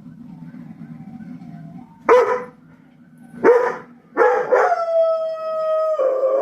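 A dog barking a few times, with two quick barks about four seconds in, then breaking into one long, steady howl that runs to the end.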